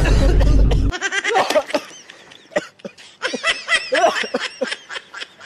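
A loud, deep rushing burst for about the first second, then a run of snickering, giggling laughter in short broken bursts.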